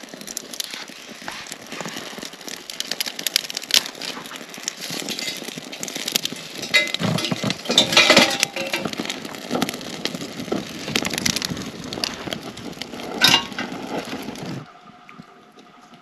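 Small wood fire crackling and snapping as twigs catch in a stainless-steel hobo stove, with louder clatters as sticks are pushed in. The crackling cuts off suddenly near the end, giving way to a quieter fire.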